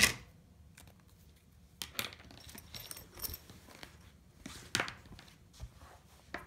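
Quilted fabric panels and sewing tools being handled on a cutting mat: a sharp knock right at the start, then scattered soft rustles and light taps as the cloth is lifted and laid down.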